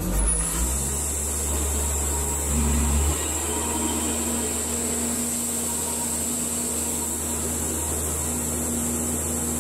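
Portable bandsaw mill running steadily as its blade cuts a slab off a log, with a low engine hum and a steady high whine; the engine note shifts about three seconds in.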